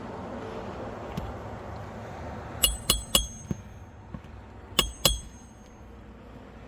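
Sharp metal-on-metal hammer strikes with a short clinking ring, as roofing nails are driven or pulled on a shingle roof. There is a quick run of four or five blows about three seconds in, then two more about two seconds later.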